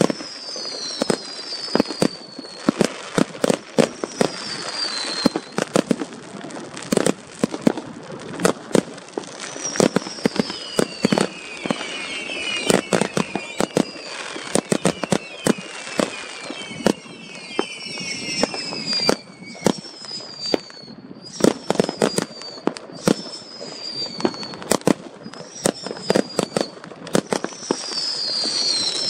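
Fireworks display: a rapid, irregular string of bangs and crackles, threaded with many short falling whistles from whistling fireworks. The firing thins to a brief lull about twenty seconds in, then picks up again.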